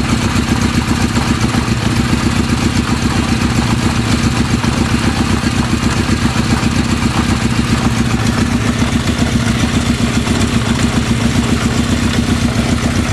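Kawasaki KZ650 air-cooled inline-four motorcycle engine running steadily at an even speed on a test run after an engine case repair.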